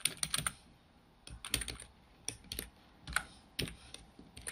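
Computer keyboard being typed on: short runs of key clicks with brief pauses between them.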